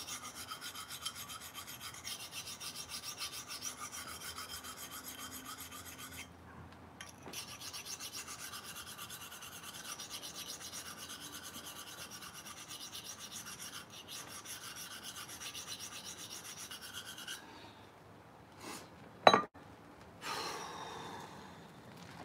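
Knife blade stroked back and forth on a hand-held sharpening stone, an even rasping rub of about three strokes a second, while a new tip is ground onto a blade whose tip had been rounded over. The strokes pause briefly about six seconds in and stop after about seventeen seconds; then comes a single sharp knock and a short rustle as the blade is wiped on a rag.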